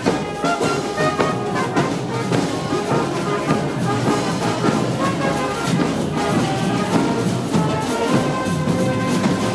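Music with brass instruments playing.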